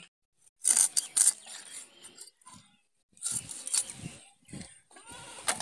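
Raw whole chicken being cut up by hand against a boti, an upright curved blade fixed on a wooden base: a few short, irregular cutting sounds with brief pauses between.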